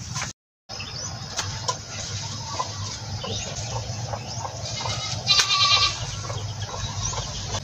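A goat bleats once, briefly, about five seconds in, over scattered light knocks and rustling. The sound drops out completely for a moment near the start.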